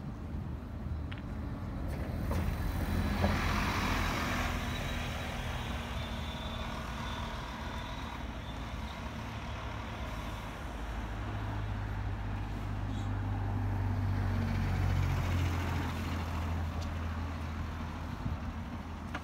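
Motor vehicles driving by on a city street: a low engine hum with tyre noise that swells as a vehicle passes about three seconds in, and again more heavily from about eleven to sixteen seconds in.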